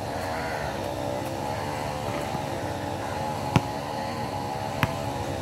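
Two sharp thuds of a basketball, about three and a half and five seconds in, the first the louder, over a steady engine-like drone that wavers slightly in pitch.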